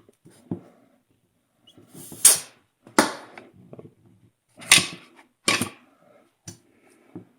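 Short blasts of compressed air from an air blow gun into a four-piston brake caliper's fluid port, used to force the pistons out of their bores; about six sharp hissing bursts, the loudest about two seconds in.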